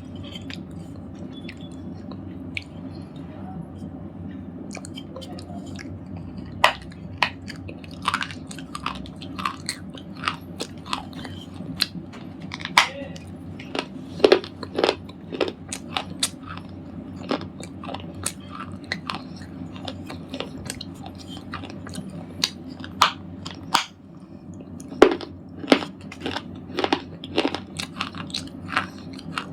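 A person biting and chewing a red slate ball, giving sharp crunching snaps over a steady low hum. The crunches are sparse at first, then come thick and fast from about six seconds in, with a short pause shortly before the end.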